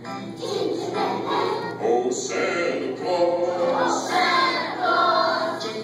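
A choir of young children singing together.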